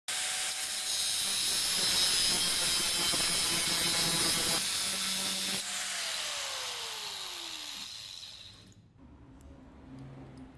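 Angle grinder with an abrasive cut-off disc cutting into a metal bicycle hub held in a vise. The cutting stops about five and a half seconds in. The grinder then winds down with a falling whine, and the whine dies away near the end.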